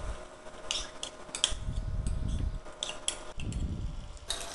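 Steel spoon clinking sharply several times against the bowl and kadai as pieces of raw mutton liver are scooped and dropped into the pan of fried onions, with a few soft low thumps.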